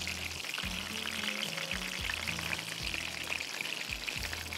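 Background music with a slow stepped bass line over a steady sizzle of food frying in a pan.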